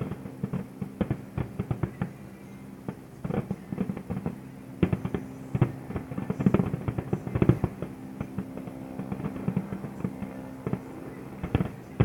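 Fireworks going off in a dense barrage of bangs and crackles, thickest about halfway through, with a steady low hum or tone underneath.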